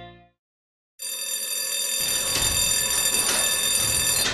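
A guitar chord fades into a moment of silence; about a second in, a loud, harsh ringing made of many steady high tones starts suddenly, a noisy rumble joins it about a second later, and it all cuts off abruptly at the end.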